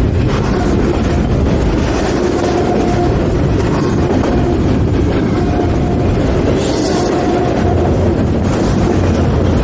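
Freight train rolling past close by: a loud, steady rumble of wheels on the rails, with a faint tone that comes and goes and a brief hiss about seven seconds in.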